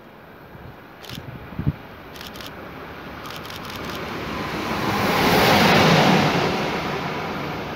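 Electric locomotive hauling a freight train passing through a station: a rumble that builds to its loudest about five to six seconds in, then slowly fades.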